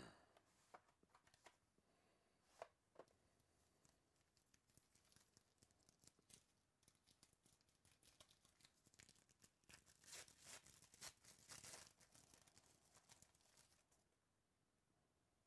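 Faint tearing and crinkling of a shiny foil trading-card pack wrapper being ripped open by hand, with scattered small crackles throughout. The crinkling is thickest about ten to twelve seconds in, then dies away.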